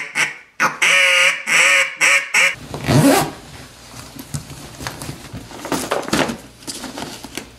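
A hand-blown duck call giving a run of quacks, about two a second, ending about two and a half seconds in. After that come rustling and clicking as gear bags are handled and opened.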